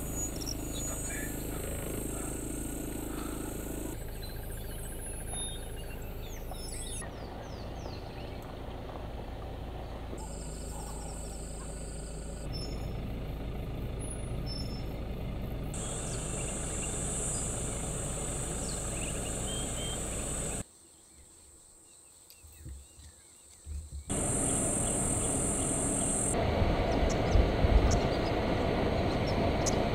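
Outdoor bush ambience in short cut segments: a steady low vehicle-engine hum, a high insect shrill in some stretches and scattered bird calls. It drops to near silence for about three seconds past the middle, and a heavier low rumble comes in near the end.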